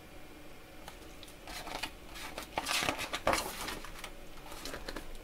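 Soft paper rustling as a page of a picture book is turned, in a few brief rustles between about one and a half and four seconds in.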